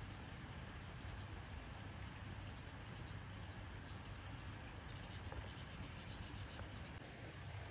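Wombat cropping and chewing grass: quick runs of crisp, crunchy clicks, thickest in the second half, over a steady low rumble.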